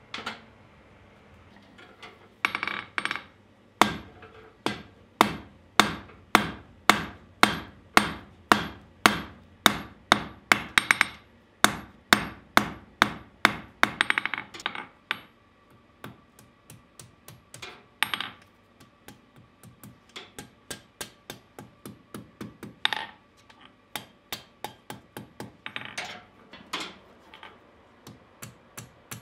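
Hand hammer forging a red-hot iron bar on an anvil: ringing blows about two a second, giving way about halfway through to lighter, quicker taps as the bar's end is curled into a scroll over the anvil edge.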